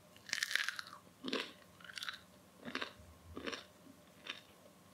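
A person biting into a piece of crusty homemade bread with one long crunch, then chewing it in about five short, evenly spaced crunches.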